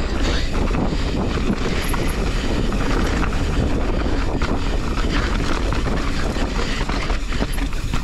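Mountain bike rolling fast over a rough dirt trail: steady tyre and wind rumble on the microphone, with frequent clicks and knocks from the bike rattling over bumps.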